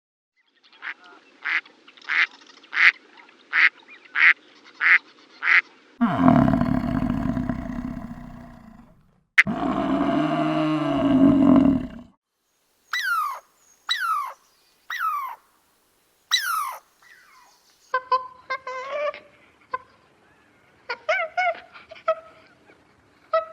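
Farm animals calling in succession. First a rapid run of short honking calls, about three a second. Then two long, low, loud calls, followed by several falling chirps and softer, broken calls near the end.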